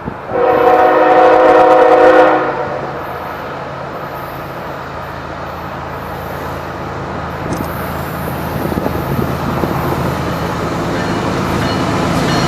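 Train horn sounding one long blast of about two seconds, then the rumble of an approaching train growing steadily louder.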